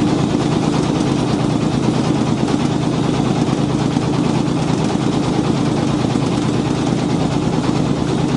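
Boat engine running steadily, an even, unchanging drone.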